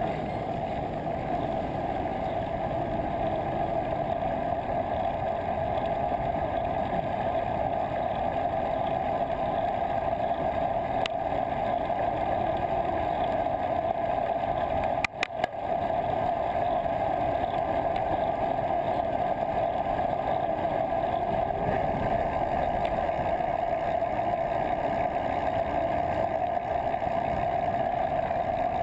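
Steady wind rush and road noise on the microphone of a camera riding on a moving bicycle in city traffic, with a strong muffled midrange hum and no let-up. About halfway through there is a brief dropout with a couple of clicks.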